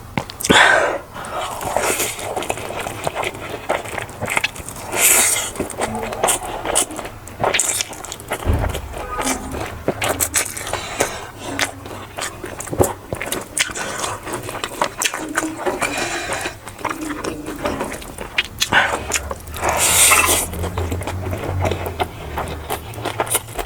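Close-miked eating sounds: chewing and biting, with food scraping on a plate in short, irregular bursts and clicks.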